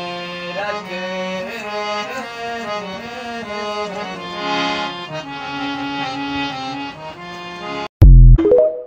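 Harmonium playing a melody in sustained reedy notes, without singing. About eight seconds in it cuts off, and a very loud, short electronic sting follows.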